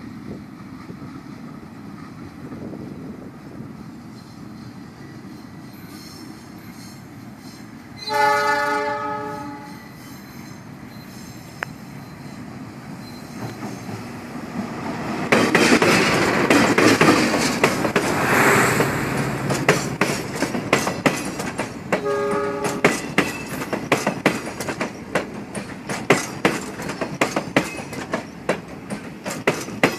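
Argo Anggrek express passenger train approaching and passing. The locomotive's horn sounds once for over a second, about eight seconds in. From about halfway, the train passes close and its wheels clatter loudly over the points, with a second short horn blast partway through.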